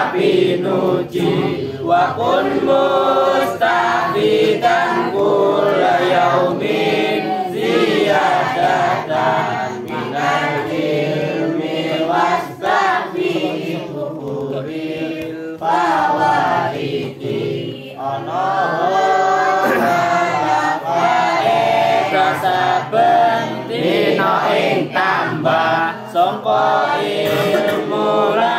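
A group of students chanting a devotional text together in unison, one girl leading into a microphone.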